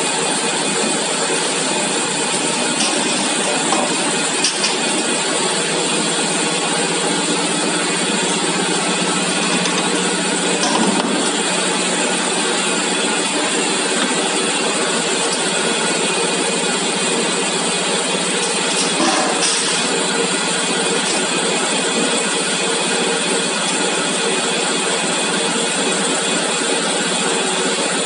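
Steady machinery noise from a paint bucket filling line, with a few faint knocks now and then.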